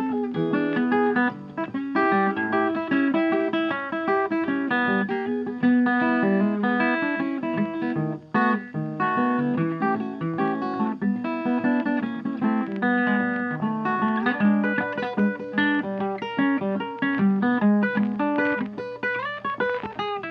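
Background music: acoustic-sounding guitar playing a busy run of plucked and strummed notes.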